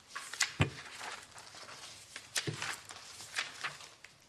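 Papers rustling and pages being turned at a desk, with two soft thumps, about half a second and two and a half seconds in.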